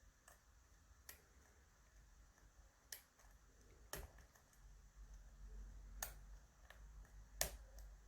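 Faint, scattered clicks of a lock pick working the barrel pins of an ASSA 600 pin-tumbler lock, setting and lifting the barrels in the countermilling one at a time, about eight irregular clicks in all. A low handling rumble comes in about halfway.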